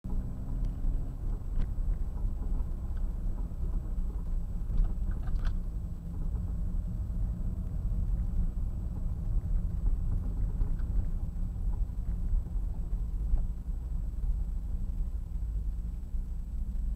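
Toyota MR2 AW11's four-cylinder engine running steadily as the car drives slowly, heard from inside the cabin as a deep, even sound, with a few light ticks about two and five seconds in.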